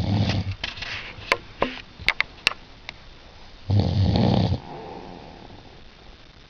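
A sleeping person snoring: deep, low snores under a second long come about four seconds apart, each trailing off into a softer breath. A few sharp clicks sound between two snores, about one and a half to two and a half seconds in.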